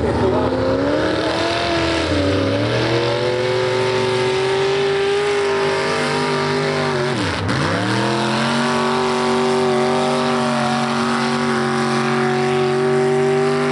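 Modified pulling tractor's engine at high revs under full load, dragging a weight-transfer sled. The pitch climbs over the first couple of seconds and then holds steady, with a brief sharp dip and recovery about halfway through.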